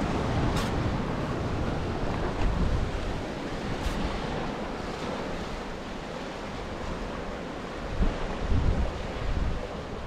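Sea surf breaking and washing over shoreline rocks, with wind buffeting the microphone in gusts that are strongest near the end.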